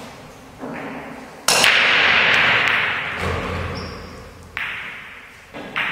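Nine-ball break shot on a pool table. The cue ball smashes into the rack with a loud clack about a second and a half in, followed by a fading clatter of balls scattering. Further sharp knocks come near the end.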